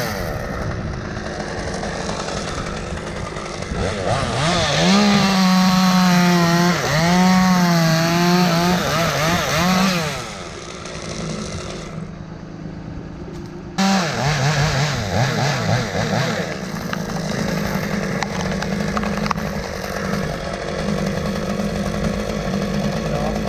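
Chainsaw at full throttle cutting through a limb, its pitch sagging and recovering as it bogs in the wood, then easing off about ten seconds in; it revs up sharply again about fourteen seconds in. A steady engine runs underneath throughout.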